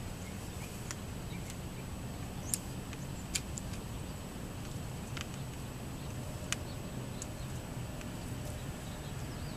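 Quiet outdoor background: a steady low hum with a few short, sharp clicks scattered through it.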